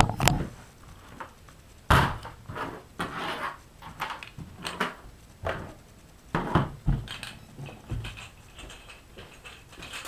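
Irregular clicks, knocks and clatter of small parts and tools being handled on a work surface, with short pauses between them.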